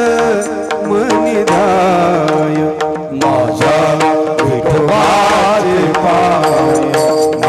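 Marathi devotional abhang sung by a male voice in ornamented, wavering phrases over a steady drone, with drum strokes throughout.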